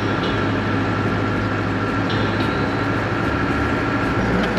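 A vehicle running steadily, with a constant engine hum under an even rush of travel noise.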